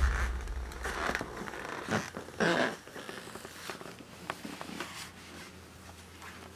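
Clothing rustling and a few short scraping rustles as a man dresses, followed by scattered soft clicks and light knocks. A low rumble fades out during the first second.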